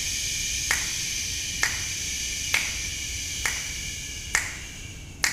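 A man exhaling steadily on a long "sh" sound, the breath hiss slowly fading and running out near the end. This is the slow eight-count exhale of a choral breath-control exercise. Sharp finger snaps keep an even beat of about one a second over it.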